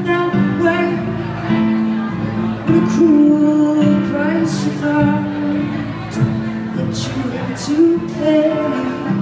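Live concert music of a slow song: a woman singing long, sliding notes over instrumental accompaniment, recorded from the audience.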